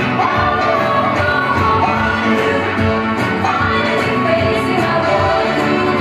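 Music with singing: a sung melody over a full instrumental backing.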